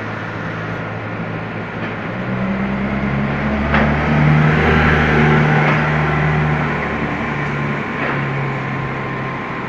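A motor vehicle's engine drones as it approaches and passes close by: it grows louder from about two seconds in, is loudest around four to six seconds, then fades as the vehicle drives off.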